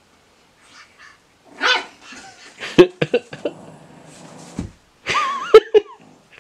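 Pug puppy giving small, high yapping barks in play, in three short bursts, the middle and last ones the loudest.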